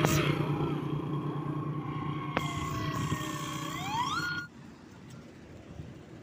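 Wind and road noise from riding a bicycle in traffic, with a motor vehicle's engine humming nearby and revving up about four seconds in. The noise then drops abruptly to a quieter background.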